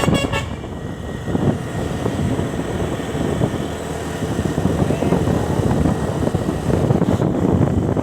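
A multi-tone telolet bus horn ends its pulsing melody about half a second in. Then comes the steady low rumble of a bus engine and road noise.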